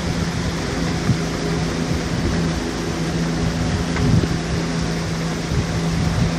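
Rabelo boat's engine running steadily under way: a low, even hum over a constant rush of noise.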